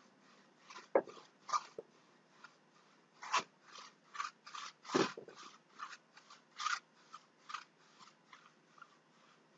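Foam paintbrush stroked back and forth across a canvas on an easel: a string of short scratchy swishes, roughly two a second. Three of the strokes are louder and carry a dull knock.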